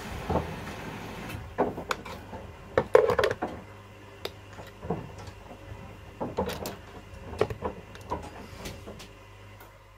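Washing machines running: a steady low hum with irregular clicks and knocks, the loudest about three seconds in.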